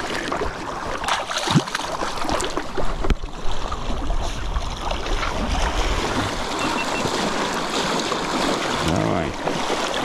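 Rushing and splashing water as an angler wades ashore through the shallows with a hooked pink salmon.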